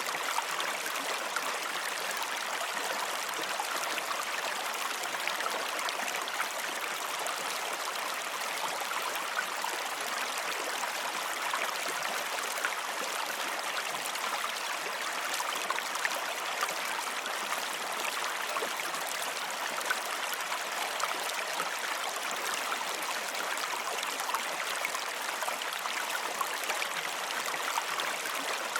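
Flowing water running steadily: an even rushing hiss with fine splashy crackle, unchanging throughout.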